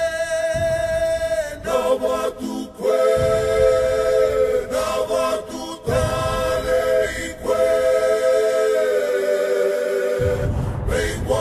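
A group of voices singing a cappella, holding long chords together in phrases of one to three seconds with short breaks between them.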